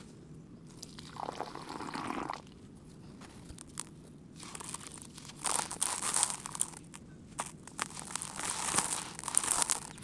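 Hands crushing and crumbling a molded cake of dry, gritty sand-like mixture over a tub of the same loose material, with grains trickling and pouring down. A soft sifting hiss comes first, then from about four seconds in dense, crisp crunching and crackling grit.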